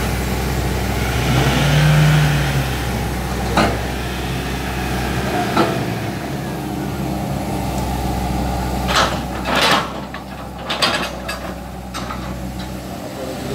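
Engines of a Hitachi ZX120 excavator and a Toyota Hilux Vigo pickup running steadily as the excavator tows the pickup through deep mud, louder for a moment about two seconds in. A few short, sharp knocks sound over the engine hum.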